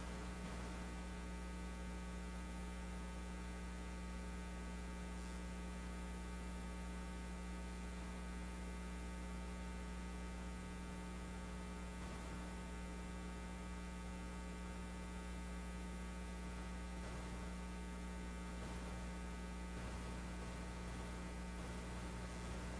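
Steady electrical mains hum on the audio line, with a faint hiss behind it and no change throughout.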